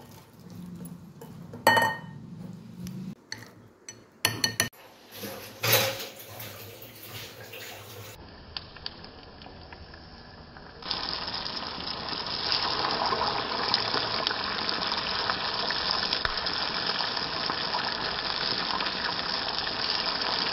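A wire whisk clinks and knocks against a glass bowl while stirring thick batter. Then hot oil in a kadai sizzles steadily as battered baby corn deep-fries, the sizzle turning louder about eleven seconds in.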